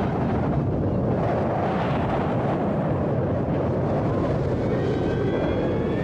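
Steady rushing noise of a firestorm: a large blaze burning in strong wind, dense and even throughout.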